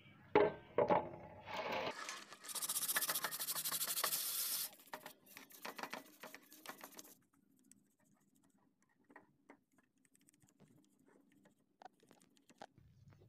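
Small brush scrubbing a black plastic water-filter part in soapy water. A couple of knocks at the start, then a few seconds of fast, loud scrubbing, then quieter scattered scrapes and ticks.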